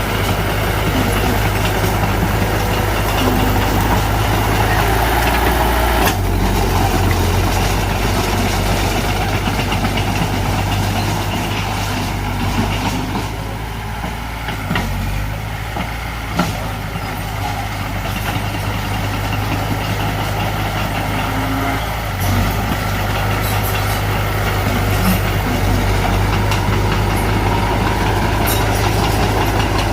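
Diesel engine of heavy earthmoving machinery running steadily. It eases off for a few seconds around the middle, and a single short, sharp knock follows.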